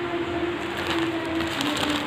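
Plastic courier pouch crinkling and rustling as it is pulled open by hand, over the steady whir of an electric fan, with faint music in the background.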